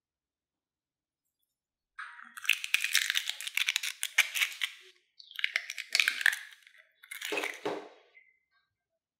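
Two raw eggs cracked open one after the other, starting about two seconds in, with the shells crackling as they are broken and pulled apart. The last burst, near the end, is duller and deeper as the second egg goes into the bowl.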